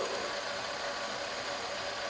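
Metal lathe running steadily, its spindle turning a workpiece with an even mechanical hum.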